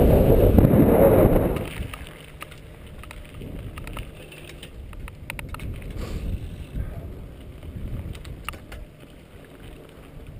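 Wind buffeting the microphone as a mountain bike rolls fast down a paved road. It stops abruptly about a second and a half in and gives way to the quieter sound of a mountain bike on a dirt singletrack, a low rolling rumble with scattered clicks and rattles.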